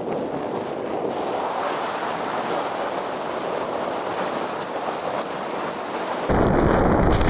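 Steady wash of surf and wind on an open reef shore. About six seconds in it switches abruptly to louder, deeper wind noise buffeting the microphone.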